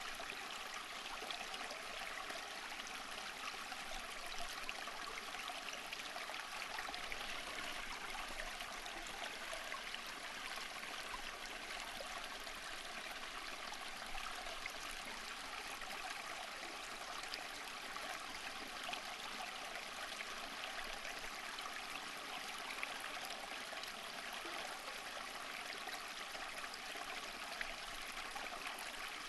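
Running water flowing steadily and unbroken, a continuous rushing and trickling.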